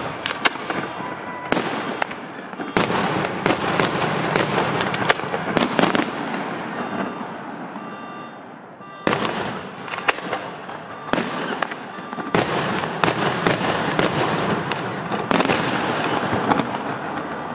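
Aerial fireworks display: shells bursting in quick succession, sharp bangs over a dense crackling. It comes in two volleys, with a short lull about eight seconds in before a fresh barrage.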